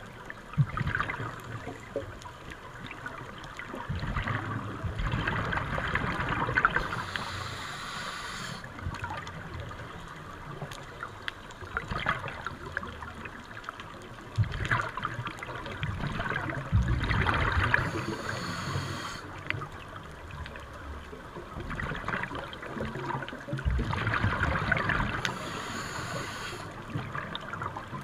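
Scuba breathing through a regulator, heard underwater: surges of exhaled bubbles come in slow, regular rounds, each with a short hiss beside it, about every eight to nine seconds.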